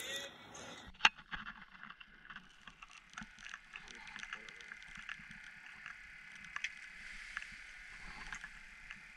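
Handling noises of a perch being unhooked by hand: rustling of a winter jacket and gloves with many small scattered ticks over a steady faint hiss, and one sharp click about a second in.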